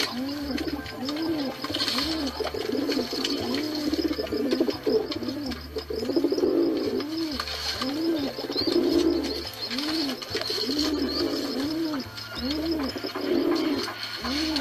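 Pigeons cooing: a low, rising-then-falling coo repeated about once a second, with extra coos overlapping in places.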